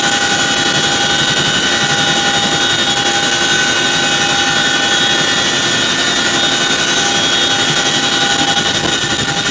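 Boeing CH-47 Chinook's twin turbines and tandem rotors running loud and steady, heard from inside the cabin with the rear ramp open. A steady high whine rides over a rapid pulsing of the rotor noise.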